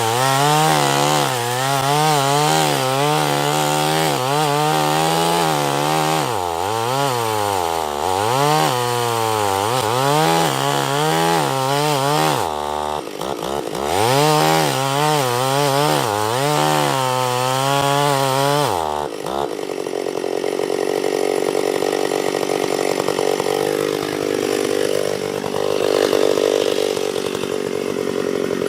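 Antique Stihl two-stroke chainsaw cutting into a large pine trunk, the engine pitch wavering up and down as the chain loads in the wood and recovers. It drops briefly a little before halfway, then runs steadier from about two-thirds through.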